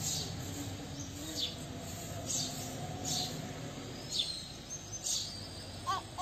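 Small birds chirping: short, sharp downward chirps about once a second, with a couple of lower calls near the end, over a steady low background noise.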